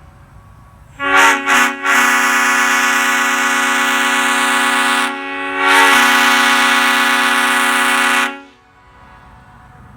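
Leslie five-chime bronze train horn blown on compressed air, a chord of several steady tones. Two short toots come about a second in, then a long blast that drops for a moment around the middle and sounds again before cutting off a little after eight seconds.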